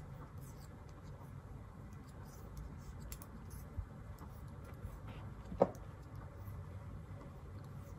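Knitting needles clicking softly and yarn rubbing during hand knitting, with one sharper click about five and a half seconds in.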